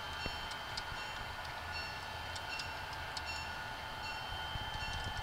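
Model railroad covered hopper cars rolling along the track, their small metal wheels giving irregular light clicks that ring briefly, over a steady high hum.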